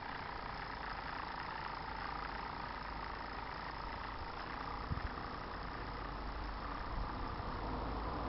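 David Auld Type 4 Mk3 model steam engine running steadily as the miniature traction engine drives along, a continuous mechanical noise with a brief knock about five seconds in.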